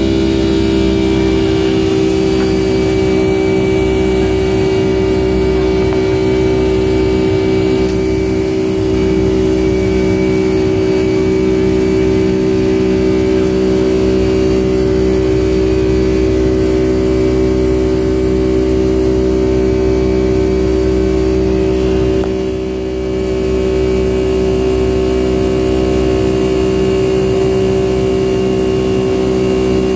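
Boeing 757-200 jet engines heard from inside the cabin during the climb after takeoff: a loud, steady roar with a steady hum running through it. The level dips briefly about three-quarters of the way through.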